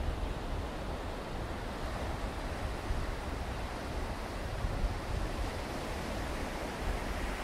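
Steady rushing noise of sea surf on the beach, with a low rumble of wind on the microphone.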